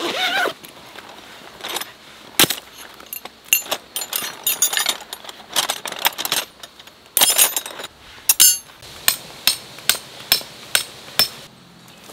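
A zipper is pulled open on a fabric tent-peg bag, then steel tent pegs clink against one another as they are handled. Near the end comes a run of about six sharp clinks, a little over two a second.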